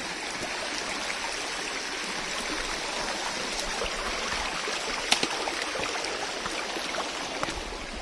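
Shallow stream running over stones, a steady rush of water, with a hiker's footsteps wading through it and knocking on the stones; one sharper knock about five seconds in.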